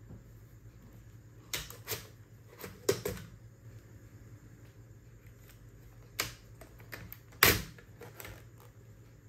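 Hard plastic clicks and knocks as toner cartridges are unlatched and pulled out of their drum units and set down. There are a handful of sharp clacks at uneven intervals, the loudest about three seconds in and again near the end.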